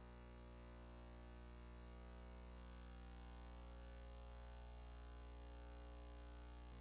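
Steady low electrical hum and faint hiss, with no other sound.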